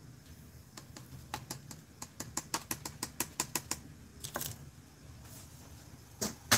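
A run of quick, light clicking taps, about four or five a second, from a container of pink glitter being tapped over a paper plate to sprinkle glitter. A few scattered taps follow near the end.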